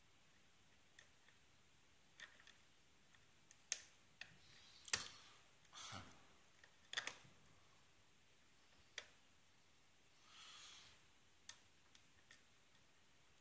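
Faint, irregular clicks of a Peterson medium hook pick and tension wrench working the spool pins of a six-pin cylinder lock during single-pin picking: about a dozen small clicks, the sharpest few in the middle.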